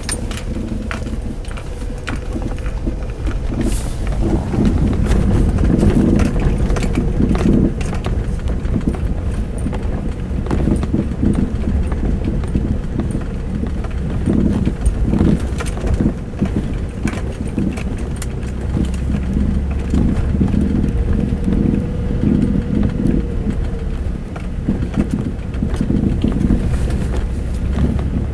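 Irregular repeated knocks from the front right suspension of a four-year-old Mazda 6 over a steady low vehicle rumble. The knock is still there after the strut bushing and upper ball joint were replaced, and its cause has not been found.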